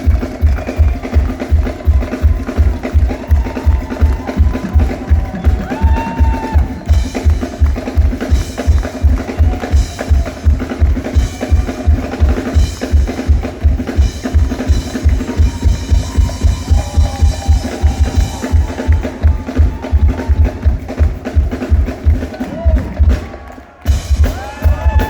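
Live band playing upbeat Ghanaian gospel highlife, driven by a steady kick-drum beat about twice a second under melodic lines. Near the end the band drops out for a moment, then comes back in.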